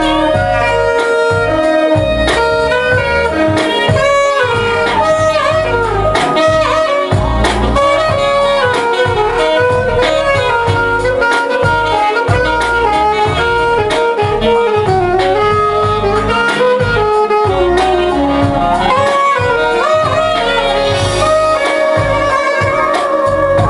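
Alto saxophone playing a flowing jazz melody over a recorded backing track with a steady bass and drum pulse.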